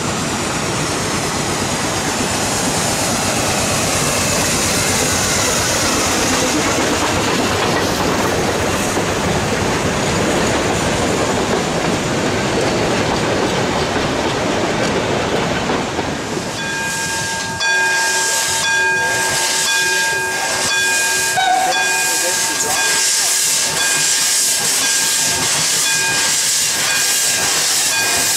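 A narrow-gauge steam locomotive and its coaches passing close by, with a steady rush of steam and rolling noise. About 17 seconds in, a standing steam locomotive hisses, with a steady high-pitched whine and a few sharp metallic knocks.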